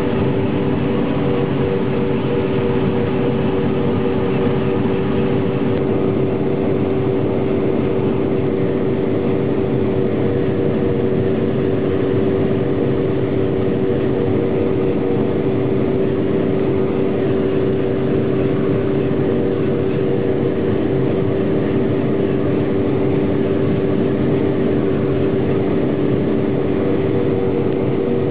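Combine harvester running steadily while cutting grain, heard from inside the cab: a constant engine and machinery drone with a steady hum.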